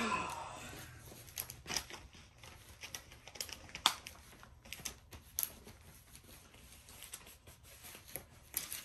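Light, scattered clicks and crinkles of packaging being handled, at irregular times.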